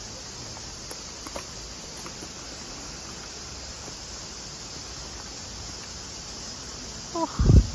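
Steady high-pitched insect chorus in tropical forest, with a few faint ticks early on. A loud low thump comes near the end.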